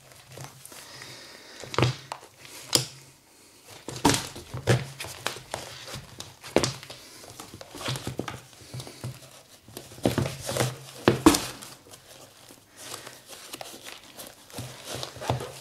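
Rustling and crinkling as basketball sneakers are put on and their laces pulled tight, with scattered knocks and taps at irregular moments.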